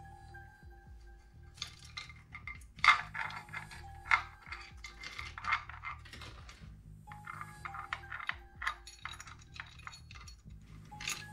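Metal tools and engine parts clinking and tapping in quick irregular clusters, the sharpest about three seconds in, over background music.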